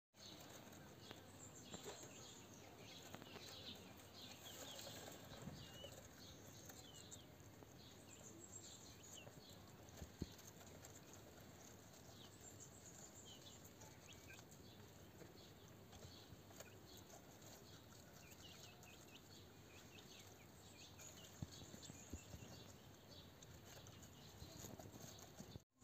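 Very faint guinea pigs nibbling watermelon and rustling in grass bedding, with scattered faint high chirps and a single sharp tick about ten seconds in.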